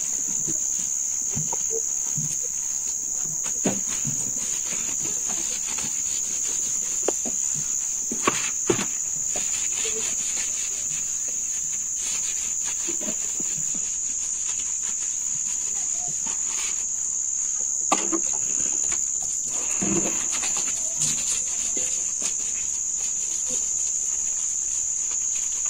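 Crickets chirring in a steady high-pitched drone, with a few short soft knocks from someone soaping and scrubbing herself.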